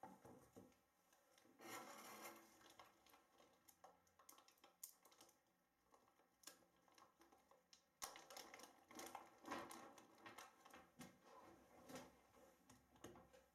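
Faint handling sounds: a small plastic bag of airgun slugs rustling and crinkling, with scattered small clicks and rubbing as hands handle the slugs at the air rifle.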